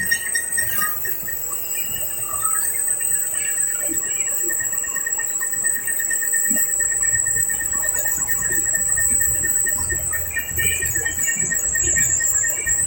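Insects trilling steadily in two high, finely pulsed tones, over an uneven low rumble.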